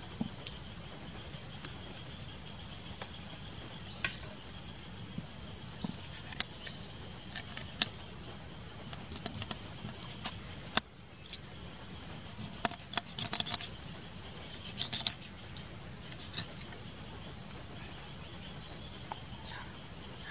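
Knife slitting open and scraping along an eel on a wooden cutting board: sharp clicks and scrapes, coming in scattered clusters with pauses between.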